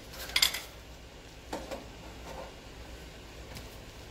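A few light metallic clinks and knocks of hand tools and steel parts being handled, two sharp ones close together about half a second in, over a low steady hum.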